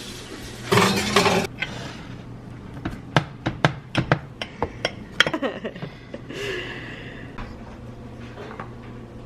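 Small hard objects clinking and clicking against glass or ceramic, a quick run of light knocks over a few seconds, after a short louder rustle about a second in.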